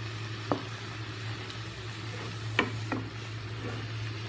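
Beef sizzling in a hot karahi, a steady hiss, with three sharp clicks of a spoon against the pan about half a second, two and a half and three seconds in.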